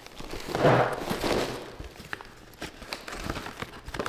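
Plastic packaging crinkling and rustling as a frozen English-muffin breakfast sandwich is pulled out of its bag, loudest about a second in, followed by scattered small crackles.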